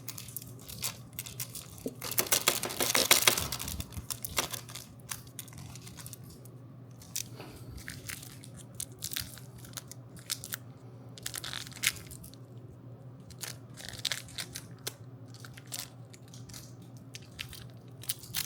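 Crinkling and crackling of handled plastic packaging in scattered small crackles, with a louder, dense burst about two seconds in. A faint steady hum runs underneath.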